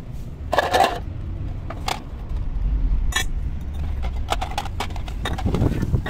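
Pieces of scrap lead dropped one after another into a small iron melting pot, landing with several irregular metallic clinks and knocks over a steady low rumble.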